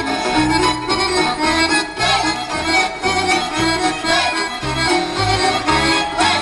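Romanian căluș dance tune played on fiddle and accordion over a steady, even bass beat.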